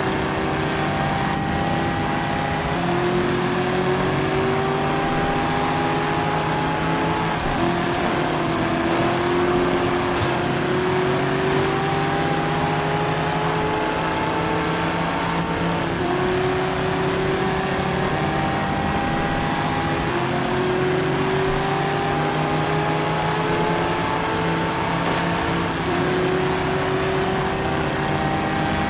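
Racing-engine sound for the motorized diecast race cars: a steady drone whose pitch climbs slowly and then drops back every few seconds, over and over, in overlapping cycles.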